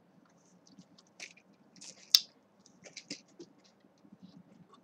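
Plastic drink bottle being handled and drunk from: soft scattered crinkles and light clicks, with one sharp click about two seconds in.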